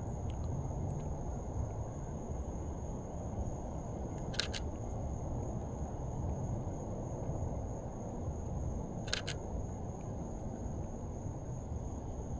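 Canon EOS RP camera shutter firing twice, about four and a half seconds apart, each a quick double click. A steady low rumble runs underneath.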